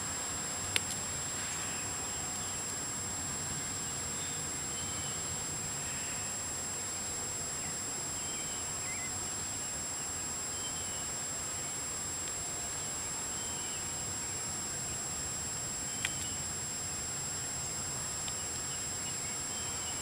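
Steady high-pitched insect drone over a soft outdoor hiss, with a few faint short chirps in the middle and two sharp clicks, one about a second in and one near the end.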